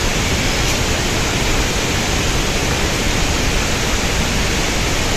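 Waterfall and cascading river water on the upper Bagmati River: a loud, steady, even rush.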